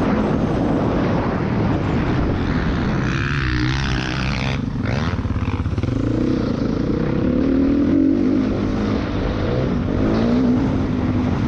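Dirt bike engine heard from on board, running hard, then easing off around four seconds in as the bike slows for a corner, and revving back up as it accelerates out.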